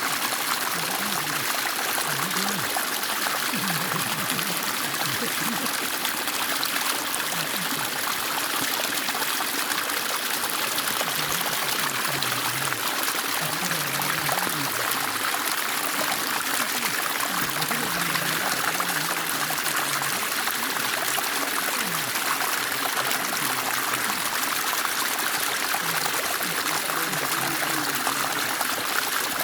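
Stream water splashing and trickling in a steady, unbroken rush.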